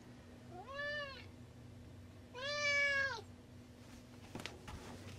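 Domestic cat meowing twice, each meow rising then falling in pitch; the second is longer and louder. The owner takes the meowing as the cat asking to be let out through a door.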